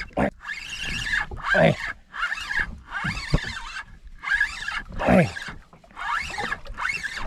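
Penn 4000 spinning reel cranked in about six short bursts as a metal jig is worked, with a falling squeal in two of them.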